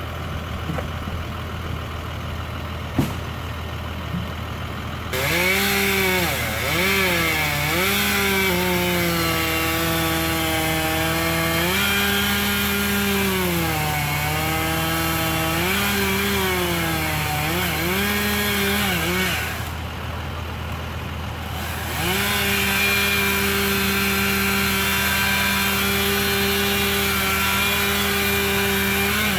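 Chainsaw idling, then revved into a cut about five seconds in; its pitch repeatedly sags and recovers as the chain bites into the maple wood. It drops back to idle for a couple of seconds, then runs at a steady high pitch.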